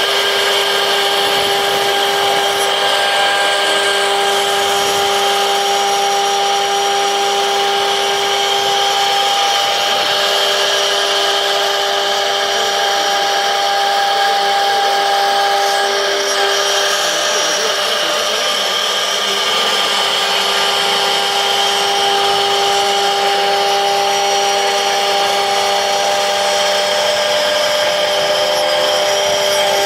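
CNC router spindle running with a steady, high, multi-toned whine, its tone wavering briefly around the middle before settling again.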